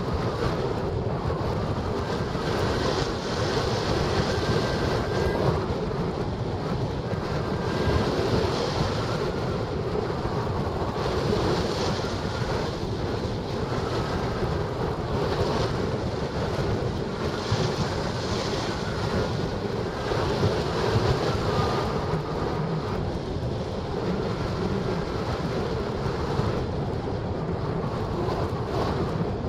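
Steady rush of wind over the microphone of a camera mounted on a hang glider in flight, the airstream of gliding flight, with faint short whistling tones now and then.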